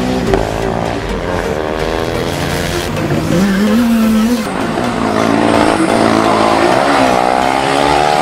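Formula SAE race car engines revving, the pitch climbing and dropping again and again as the cars speed up and slow through corners.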